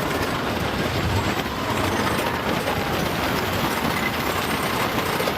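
Wooden roller coaster train running along the track: a steady rumble and clatter from the wheels on the rails.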